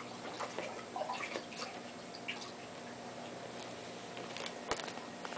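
Air stone bubbling in a tub of water fed by a small air pump: a steady, irregular patter of little bubble pops and splashes, with one sharp click near the end.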